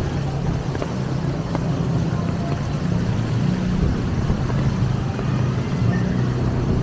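Motor vehicle engine running steadily with a low hum, over a steady hiss of rain on the street.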